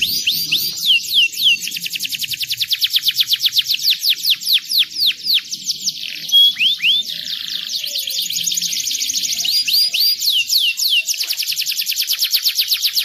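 Domestic canary singing: long rolls of rapid repeated notes, broken by clear falling whistled sweeps, with a short pause about six seconds in.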